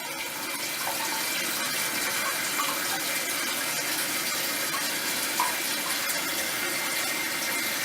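Toilet refilling after a flush: a steady hiss of water running into the tank.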